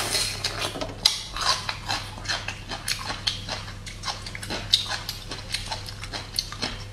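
Close-up chewing of crunchy hand-peeled bamboo shoot: an irregular run of crisp bites and wet mouth clicks, over a faint low steady hum.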